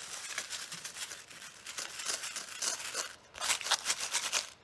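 Boxes and packaging of screws being handled: rapid crinkling and rustling, with a short break a little after three seconds in.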